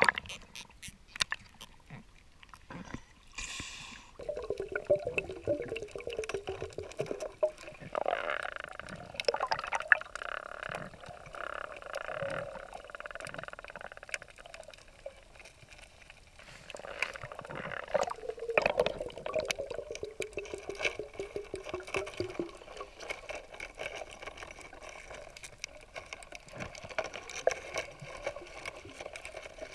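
Underwater sound through the diving camera's housing: water swishing around it, scattered sharp clicks, and two stretches of a wavering, falling hum, about 4 seconds in and again about 17 seconds in.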